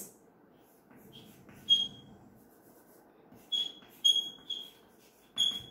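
Chalk writing on a chalkboard, giving about half a dozen short, high-pitched squeaks as the letters are drawn, with quiet scratching between them.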